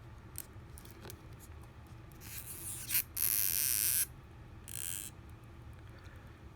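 Battery adhesive strip being pulled from an iPhone 6 Plus: three bursts of scratchy peeling noise, the loudest lasting about a second, around the middle.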